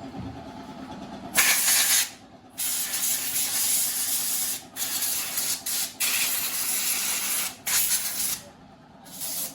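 Spray gun hissing in a series of bursts with short breaks, spraying cleaning oil onto a motorcycle during a workshop clean-down.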